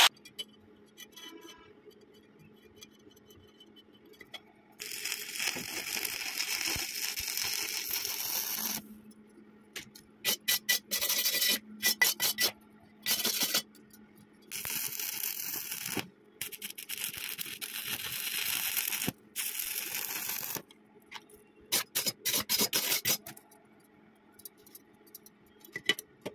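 Stick-welding arc crackling on thin steel square tubing, in runs of a few seconds and in quick short bursts with breaks between. A low steady hum runs underneath.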